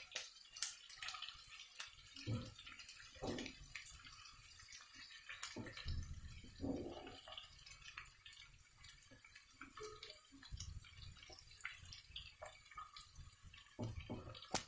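Chopped amaranth leaves dropped by hand into a kadai of hot oil with garlic and spices: faint, irregular sizzling and crackling with the rustle of the leaves and a few soft knocks.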